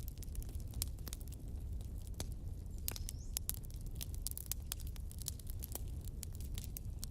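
Wood fire in a fireplace crackling: many sharp, irregular pops and snaps of burning logs over a low, steady rumble of flames.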